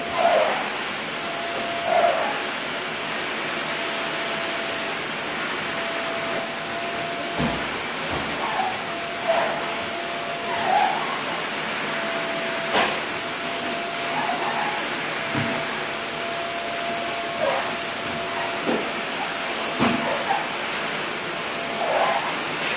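A steady rushing noise from a running household machine, with a faint steady whine in it. Over it come short soft vocal sounds from a toddler and a few knocks, the clearest about halfway through.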